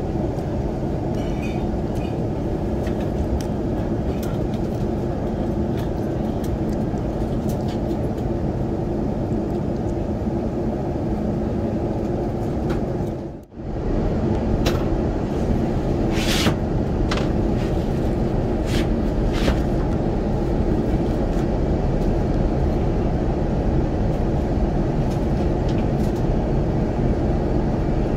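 Steady low cabin noise inside an Airbus A350-900 airliner in flight: jet engine and airflow noise heard through the fuselage. The sound briefly drops out about halfway through.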